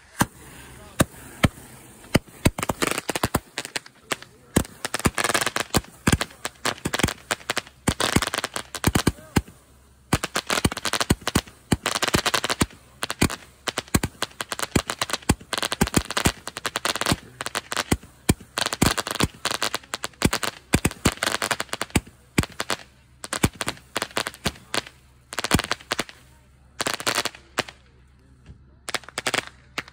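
A consumer aerial firework cake fires a rapid, unbroken run of shots and crackling bursts, like machine-gun fire. It thins to a few last cracks near the end and then stops.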